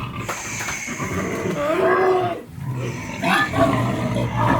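Pigs grunting and squealing, several calls in a row, with a drawn-out wavering cry about halfway through.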